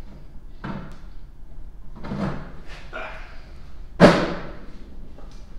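Knocks and scuffs of a heavy bombarder choke being lifted by hand up against the underside of a wooden bench, with one loud thump about four seconds in.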